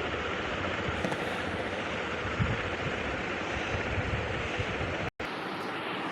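56-inch BRB ceiling fan running, a steady rush of air from its blades. The sound cuts out for an instant about five seconds in.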